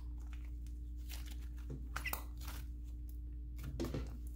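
Soft butter slime being kneaded and squeezed by hand, giving off irregular small crackles and clicks that come a little stronger near the end.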